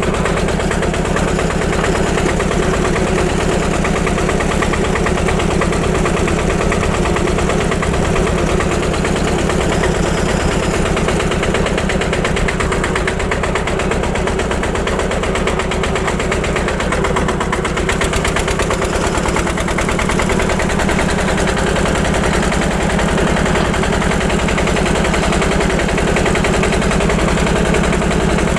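Farm tractor's engine running steadily, with a rapid, even firing beat.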